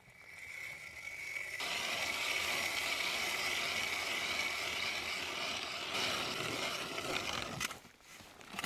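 Hand-cranked ice auger boring into lake ice: a steady grinding scrape of the cutting blades, which stops near the end.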